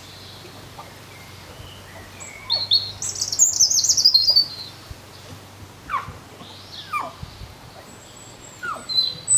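Songbirds calling: a rapid, high warbling run of chirps about two and a half seconds in, then three short calls that slide sharply downward in pitch, about a second apart.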